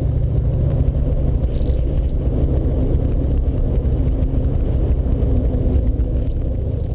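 Vehicle driving on a sandy dirt road, heard from inside the cabin: a steady low rumble of engine and tyres on the gravel.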